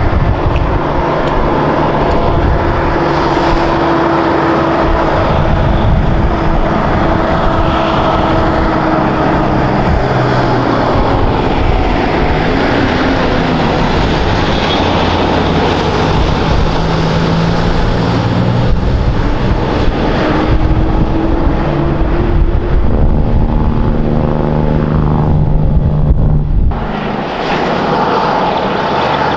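Diesel engine of a bonneted semi-truck towing a bulk tanker trailer, running loud as it comes round a bend and passes close by, its pitch rising and falling. Near the end the sound drops briefly, then the engine of a second heavy truck carries on.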